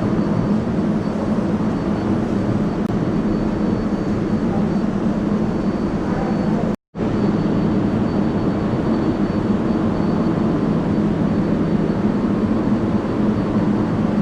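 New York City Subway 7 train running through the tunnel, heard from inside the car: a steady rumble with a faint high whine above it. The sound cuts out completely for a split second a little before halfway.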